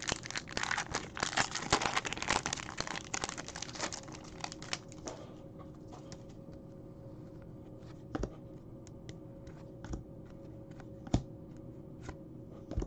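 Foil wrapper of a 15-16 Upper Deck Series 2 hockey card pack crinkling and tearing as it is ripped open, a dense crackle that stops about five seconds in. After that, only a few soft clicks as the cards are handled.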